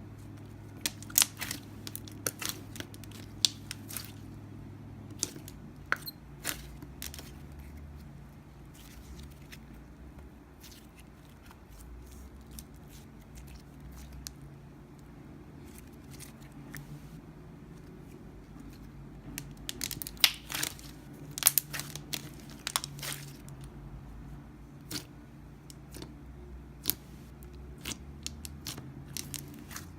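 Slime being squeezed and poked by hand, making clusters of sharp crackling clicks and pops. They are busiest in the first few seconds and again about twenty seconds in, over a low steady hum.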